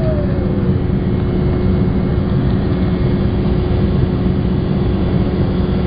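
Inside the cabin of an Embraer E190 climbing after takeoff: the steady noise of its GE CF34 turbofans and the air rushing past, a deep rumble under a constant hum.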